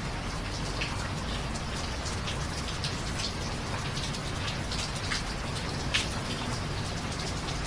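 Steady rain, with many separate drops ticking close by and one louder drop about six seconds in.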